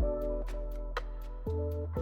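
Background music with a steady ticking beat over sustained bass and chords, with new chords coming in at the start and about one and a half seconds in.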